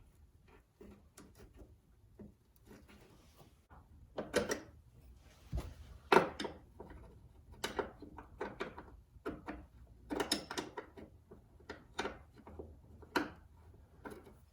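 Irregular clicks and knocks of hand tools and metal parts being handled while working on lines in a car's engine bay, with one sharper knock about six seconds in.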